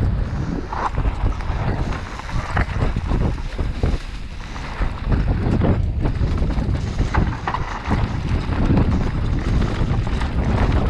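Mountain bike riding down a dirt trail: wind buffets the action camera's microphone over a steady rumble of tyres on the ground, with frequent short knocks and rattles from the bike over bumps.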